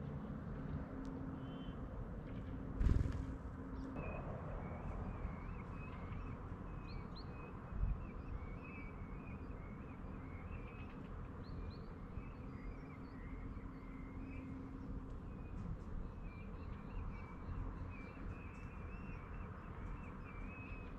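Small songbirds twittering almost continuously from about four seconds in, over a steady low background rumble. A short thump about three seconds in is the loudest moment, with a smaller thump a few seconds later.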